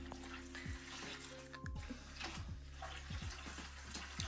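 Dirty aquarium water running from an electric pump's drain hose into a plastic bucket, a steady splashing trickle over a low, steady pump hum.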